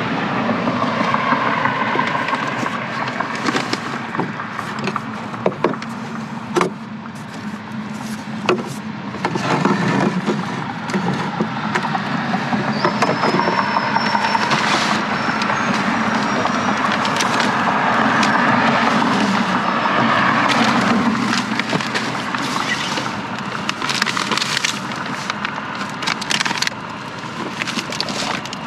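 Road traffic passing, swelling and fading a couple of times, with occasional knocks and rustles of packaged food being set onto shelves.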